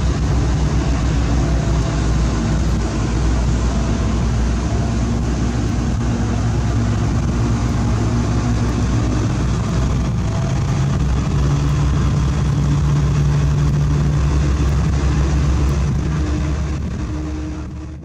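Heavy diesel engine of road-paving machinery running steadily close by, its pitch shifting slightly about ten seconds in. The sound fades out near the end.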